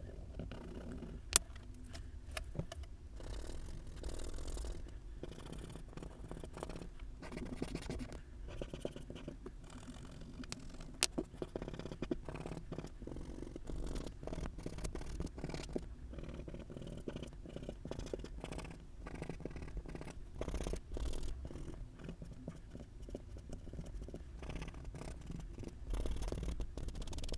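Fast, dense scratchy rustling of hands rubbing and handling an oil-pastel chalk board and its paper, sped up in time-lapse, with a couple of sharp clicks.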